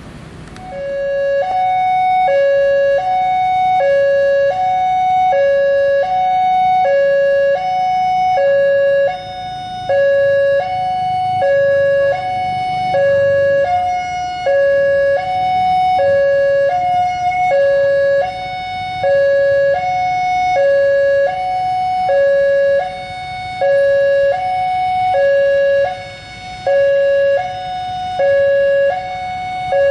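Railway level-crossing warning alarm sounding its electronic two-tone chime, a high and a low note alternating about once a second each, steady and loud. It starts about a second in, over a faint low rumble.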